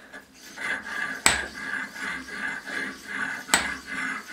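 Valve rod of a homemade steam engine being worked back and forth by hand in its cast-iron valve body: a repeated metal-on-metal rubbing, with two sharp metal clicks, one about a second in and one near the end.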